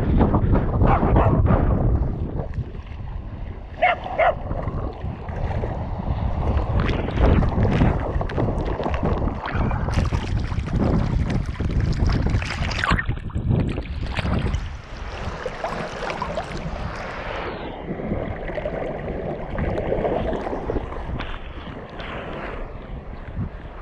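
Wind buffeting the microphone of a camera strapped to a running dog's harness, then the splashing and sloshing of water as the dog swims, from about ten seconds in to about seventeen seconds, before it runs back along the shore.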